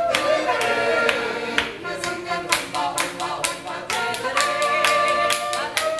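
Rhythmic group hand-clapping in time with an oompah band's drinking song: a woman's voice singing and a trumpet playing held notes over the claps.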